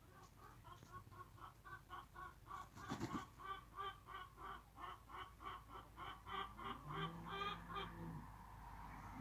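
Rooster clucking in a rapid, even series of about three to four clucks a second, growing louder about three seconds in and stopping near the end.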